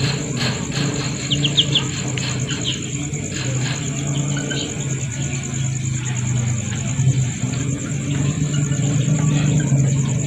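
Night-time insect chorus: a steady high-pitched trill of crickets, with a few short chirps about a second and a half in, over a louder low steady hum.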